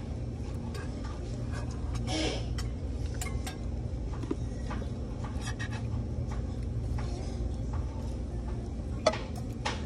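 Steady low room hum with scattered light clicks of metal chopsticks and spoons against metal bowls, and one sharper clink about nine seconds in.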